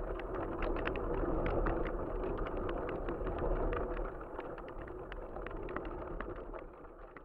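Wind buffeting the microphone of an action camera riding on a flying kite: a steady rushing rumble with quick irregular ticks and rattles, fading away over the last few seconds.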